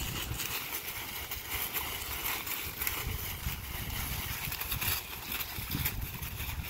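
Dry fallen leaves crunching and rustling under puppies' paws and a person's feet as they run through a leaf-covered yard, an irregular crackle over a constant low rumble.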